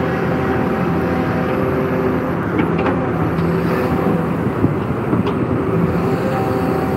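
Hydraulic excavator's diesel engine running steadily as the bucket works through sand and gravel, with a few brief sharp clinks about halfway through.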